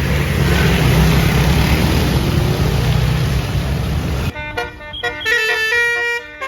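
A bus runs loudly with heavy noise, then the sound cuts abruptly, a little past four seconds in, to a Basuri multi-tone air horn playing a stepped melody of clear notes.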